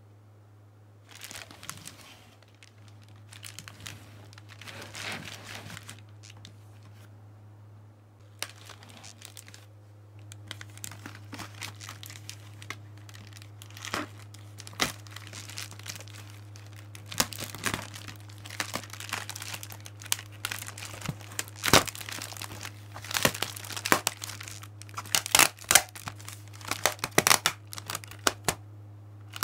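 Clear plastic air-column packaging bag crinkling and crackling as it is handled and pulled open. The sharp crackles come sparsely at first and grow denser and louder in the second half, over a steady low hum.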